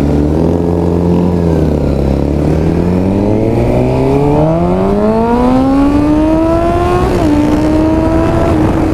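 Motorcycle engine under way. It holds steady, dips briefly, then climbs in pitch for several seconds as the bike accelerates. About seven seconds in it drops a little and settles into a steady cruise.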